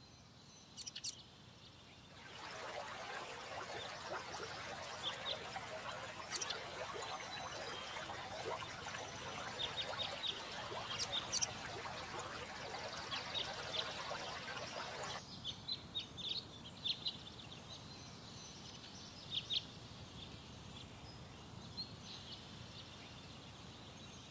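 Water from a small stream gurgling into a plastic bottle held in the flow. It starts about two seconds in and cuts off abruptly after about thirteen seconds. Birds chirp throughout.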